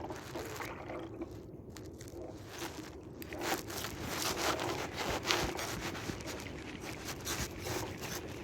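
A steady low hum, typical of a boat motor, runs under scraping and clicking handling noises that thicken from about three seconds in.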